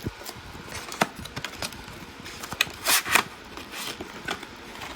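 A RAM kit's box being slit open with a screwdriver: scattered small clicks and scrapes, with two louder rasping swishes about three seconds in.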